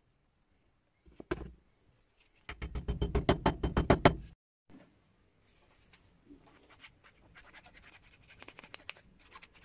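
Tool work on a steel ferrule fitted to a wooden handle: a single knock, then a quick run of sharp taps, about nine a second for under two seconds, followed by faint scraping and clicking as a thin metal rod works inside the ferrule.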